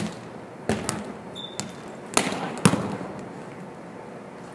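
A volleyball being hit and bouncing on a hardwood gym floor: about five sharp smacks, in pairs, each ringing briefly in the large gym.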